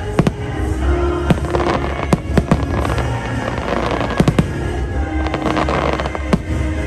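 Aerial firework shells bursting in a series of sharp bangs, several in quick pairs, over show music playing underneath.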